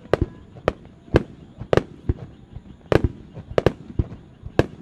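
Traditional Japanese aerial firework shells bursting in the sky, a run of sharp bangs about two a second at uneven spacing, each with a short echo.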